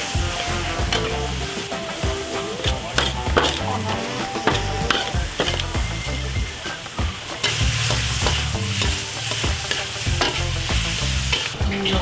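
Seafood stir-frying in a hot wok: oil sizzling while a metal wok spatula scrapes and knocks against the pan over and over. The sizzle grows louder a little past halfway.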